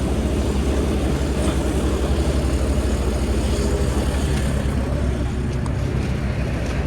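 John Deere 9560 STS combine's diesel engine running steadily, heard from inside the cab as a low, fast-pulsing rumble.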